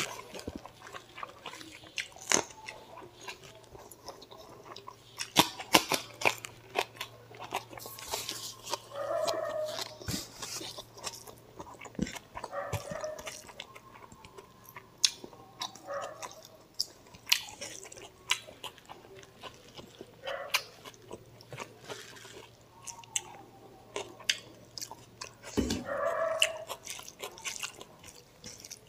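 Close-up eating sounds of mutton curry and rice eaten by hand: chewing, lip smacks and wet mouth clicks, with sharper clicks now and then. From about a third of the way in, short pitched sounds come every few seconds.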